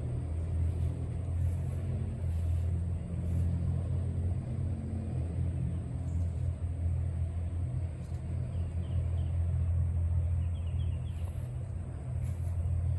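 Steady low mechanical rumble, like a running motor or engine, with a few faint high chirps about ten and a half seconds in.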